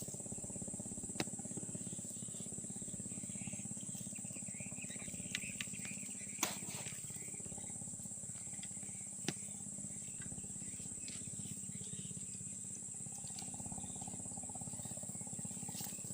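Steady high-pitched chorus of crickets or similar insects, with a low hum beneath it and a few sharp clicks, the loudest a little over six seconds in.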